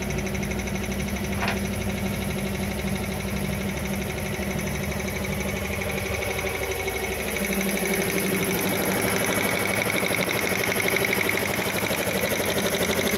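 Selkon two-cylinder air compressor, belt-driven by a 7 HP electric motor, running steadily with a fast, even pulsing. It grows louder and brighter about eight seconds in. A short click sounds about a second and a half in.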